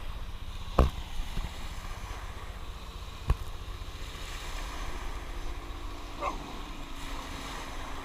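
Wind buffeting the microphone in a steady low rumble, with surf washing at the shoreline. Two sharp knocks stand out, about a second in and a little past three seconds, and there is a brief pitched cry about six seconds in.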